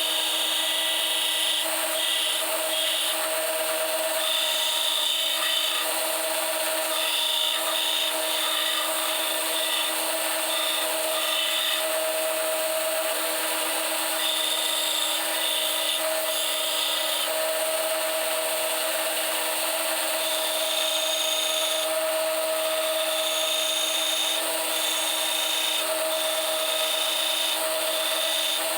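Electric grinding or sanding tool running steadily while it grinds steel to rough out a knife blade. The pitch stays level, and a high grinding hiss comes and goes as the work touches and leaves the abrasive.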